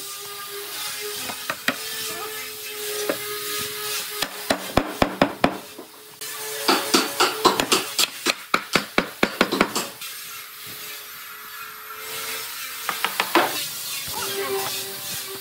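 Quick, sharp knocks of a tool striking wood, coming in runs of several strikes at about half a dozen a second, over a faint steady hum.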